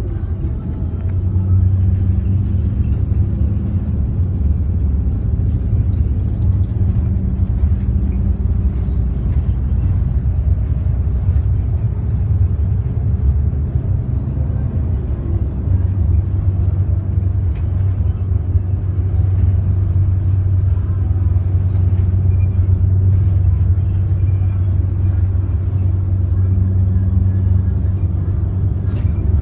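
Cummins ISL six-cylinder diesel of a Bustech ADi bus, heard from inside the cabin, droning steadily while the bus is under way, with light rattles from the body.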